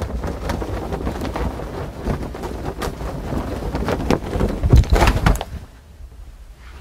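Foley whooshing made live by swinging and flapping a cloth garment, standing in for a body flying through the air, with a louder whoosh about five seconds in before it falls away.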